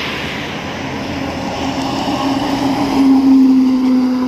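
Bus driving past: engine hum and road noise grow as it approaches and are loudest about three seconds in as it passes. The hum drops slightly in pitch as it goes by.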